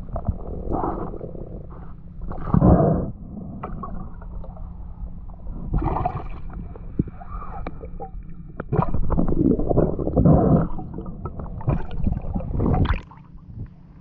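Muffled gurgling and sloshing water heard through an underwater action camera's housing, in uneven bursts with a few sharp clicks. Near the end the camera comes up out of the water and the sound drops to a quieter wash of surface water.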